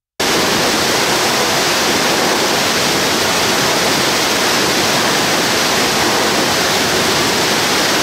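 Waterfall pouring: a steady, loud, dense rush of falling water that cuts in abruptly just after the start.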